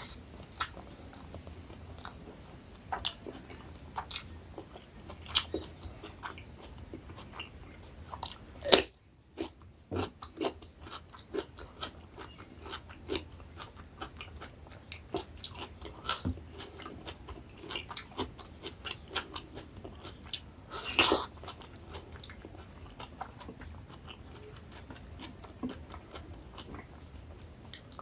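Close-up eating sounds: a person chewing and biting into food, with irregular wet clicks and smacks throughout. Two louder crunchy bites come about a third of the way in and again about three quarters through.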